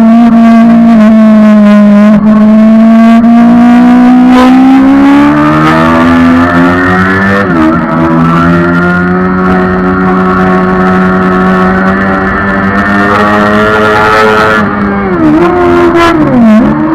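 Suzuki GSX-R750 inline-four engine running hard at high revs, its note climbing slowly, dipping briefly about seven and a half seconds in, then falling and picking up again twice near the end.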